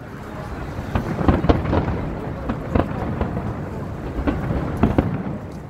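Aerial firework shells bursting in a rapid, irregular series of booms over a continuous low rumble.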